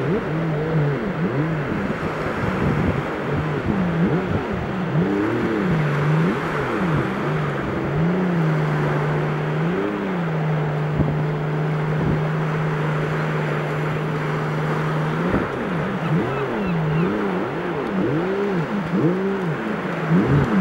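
Jet ski engine running at speed, its pitch rising and falling again and again, holding steady for about five seconds midway, over a steady wash of surf and wind.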